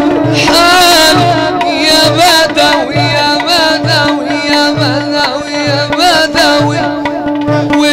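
Middle Eastern religious-song ensemble playing an instrumental passage: a wavering melody over a steady held note, with a hand-drum beat.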